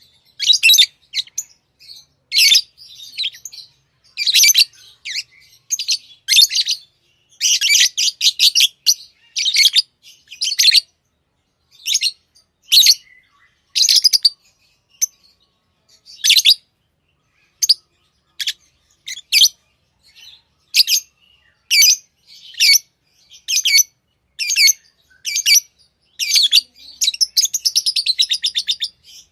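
Pet lovebirds chirping: short, high-pitched chirps in clusters about once a second, with a faster run of rapid chirps near the end.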